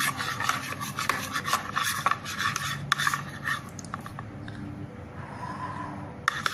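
A stirrer scraping round a container through thick glue mixed with black poster paint, in quick repeated strokes, as slime ingredients are stirred together. The scraping stops about three and a half seconds in, leaving only faint sound.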